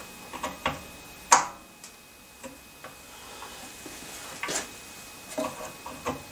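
Scattered clicks and knocks from a 7x14 mini lathe being handled as its metal change gears are engaged, with the chuck turned by hand; one sharper click about a second and a half in.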